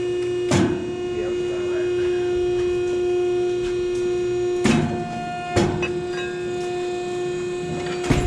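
A steady, even hum with four sharp knocks spread through it.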